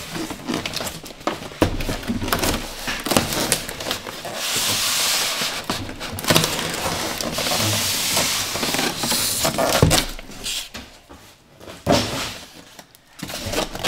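Cardboard box and white foam packing blocks being handled: rustling and knocking, with a long hissing scrape in the middle as foam slides against cardboard.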